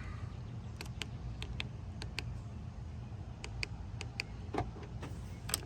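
Buttons on a Chevrolet Silverado door-lock keypad being pressed one after another: a dozen or so light, irregular clicks as a code is entered, with a louder click near the end, over a steady low hum.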